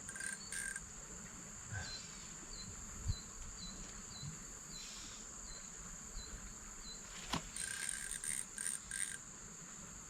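A steady, high-pitched drone of insects such as crickets, with a run of short high chirps repeating about twice a second through the middle.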